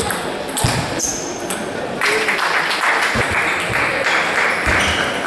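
Table tennis ball clicking off bat and table in a rally, ending about a second in. Then a steady hall background noise of voices, with a few dull low thuds.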